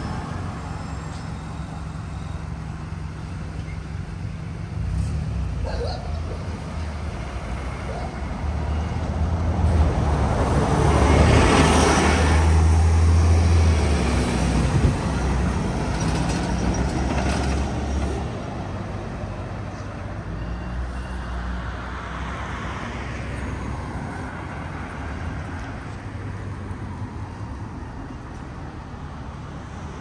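Street traffic with a concrete mixer truck driving past. Its diesel engine rumble and tyre noise build up, peak near the middle and fade away, with a brief sharp knock at the loudest point. Lighter car traffic runs at either side.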